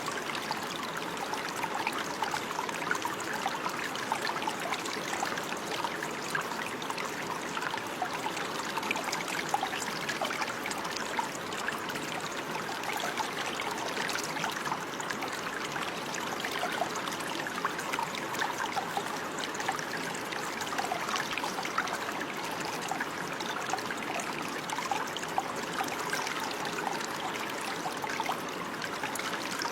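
Water running and trickling over stones in a small stream, a steady babble full of small splashes.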